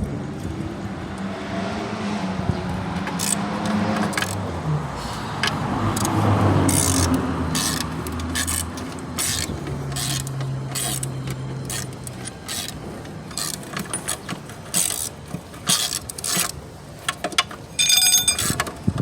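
Hand tools and metal parts clinking and knocking on a transmission being taken apart, with scattered sharp clicks and one ringing metallic ping near the end.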